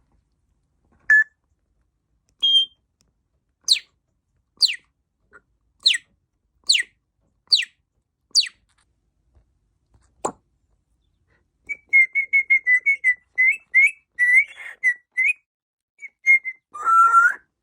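African grey parrot whistling: six sharp, steeply falling laser-like whistles about a second apart, then a single click. After that comes a fast run of short chirping notes and a louder, lower squawk at the end.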